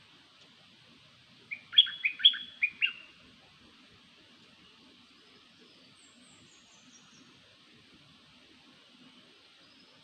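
A songbird, the bird known in Thai as nok dok taeng, gives one quick phrase of about six short chirps about one and a half seconds in. This is the call used to lure the species. A fainter, high, descending run of notes follows a few seconds later over a steady faint hiss.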